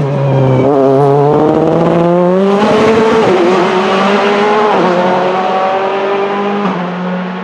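Nissan VK45DE 4.5-litre V8 of an Oreca 03R LMP2 race car accelerating hard out of a corner. Its pitch climbs through the gears and drops at each of three upshifts, and the sound fades a little near the end as the car pulls away.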